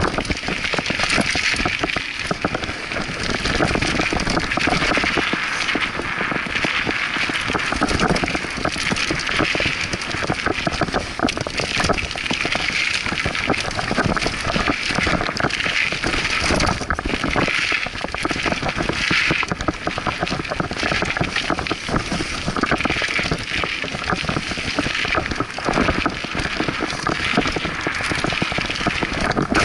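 Scott Aspect 35 mountain bike ridden fast down a dirt singletrack: knobbly tyres rolling over dirt and roots, with a constant dense rattle and clatter from the bike over the bumps, and wind on the microphone.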